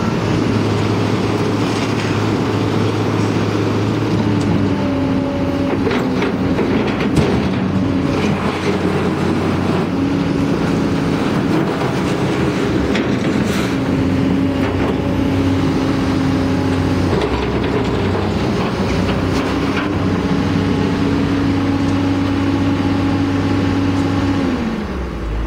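Komatsu PC290LC excavator's diesel engine running steadily under load, with a hydraulic pump whine that comes and goes in stretches of a few seconds as the boom and arm are worked, dropping in pitch near the end. A few metallic clanks, the loudest about seven seconds in.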